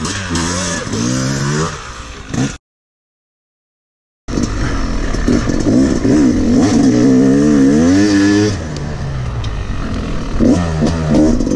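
Yamaha YZ250X two-stroke dirt bike engine, heard from on the bike, revving up and down as it is ridden round the track. The sound cuts out completely for under two seconds about two and a half seconds in, then the revving picks up again louder.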